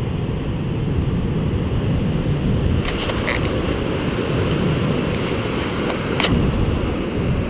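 Wind buffeting the microphone over breaking surf: a steady low rumble, with a few faint clicks about three and six seconds in.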